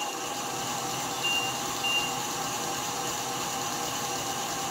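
Stand mixer's motor running steadily as its beater mashes potatoes in the steel bowl. There are two short high-pitched tones a little over a second in.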